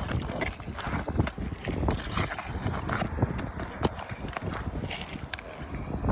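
Irregular knocks, scrapes and crackles of asphalt shingles being pried and torn loose from a roof.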